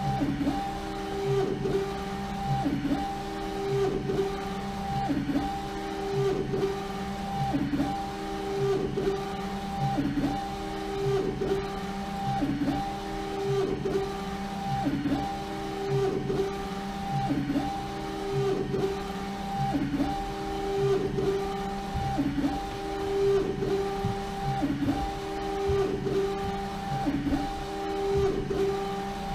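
LogoJet UV flatbed printer with a rotary jig printing. Its print head carriage shuttles back and forth about once a second, and the drive motor whines, rising and falling with each pass.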